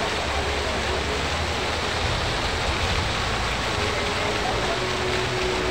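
Steady rushing outdoor noise with a low, uneven rumble underneath; a faint steady hum joins about four seconds in.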